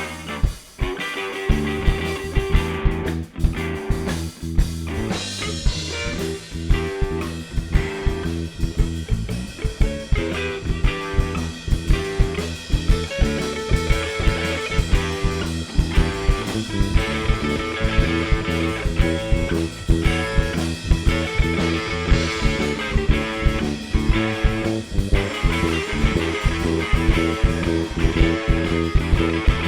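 Background music: guitar-led rock with a steady drum beat.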